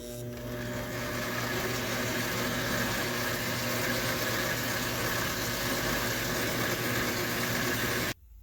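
Small metalworking lathe running under power, a steady motor hum with a hiss over it, switched off suddenly about eight seconds in.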